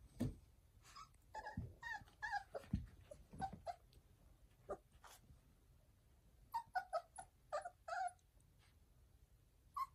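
Young sighthound puppies giving short, high yips and whimpers as they play, in two clusters of calls with a pause between. A few low thumps sound in the first three seconds.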